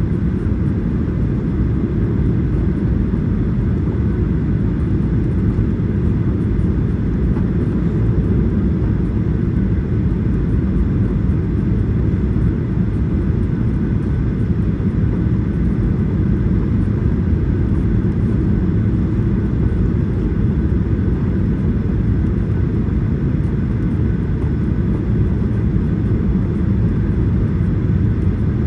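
Airliner cabin noise in flight: a steady, even low rumble of engines and airflow with no change in level.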